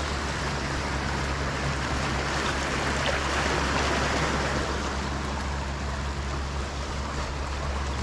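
Steady rushing of moving water, with a low steady hum beneath it.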